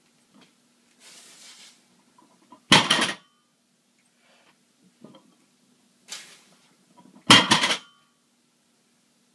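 A 395 lb loaded barbell set down on the floor twice during deadlift reps, the iron plates landing with a loud clanking rattle each time, about four and a half seconds apart. A short, hard breath comes about a second before each landing.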